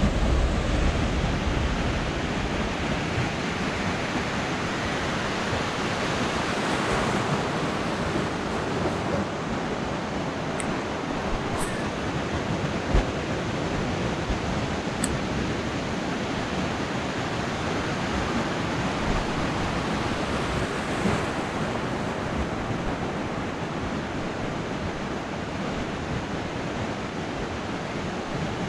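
Ocean surf breaking and washing up the beach: a steady, even rush of water. A few faint ticks and a soft knock come near the middle.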